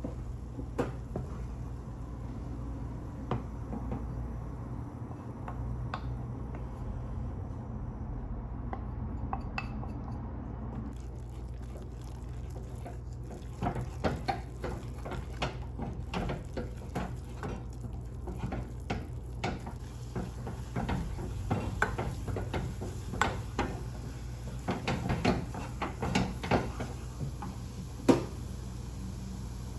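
Dishes and cutlery clinking and clattering, a few knocks at first and then a busy run of clinks in the second half, over a steady low hum.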